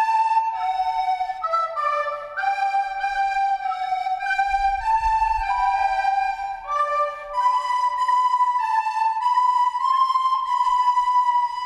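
Flutes playing a melody in several parts at once, notes moving stepwise with no singing.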